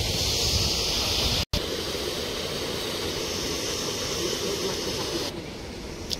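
Steady rushing hiss, broken by a short dropout about a second and a half in, and turning duller for the last second or so.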